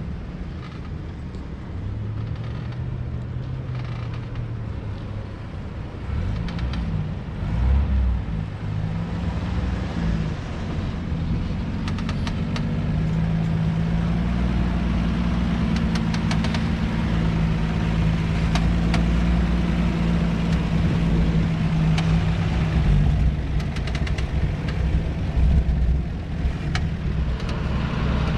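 1965 Toyota FJ40 Land Cruiser's original F-series inline-six engine running at low speed on an off-road trail. The pitch wavers with the throttle, then holds steady through the middle. Scattered sharp clicks and knocks are heard from about twelve seconds in.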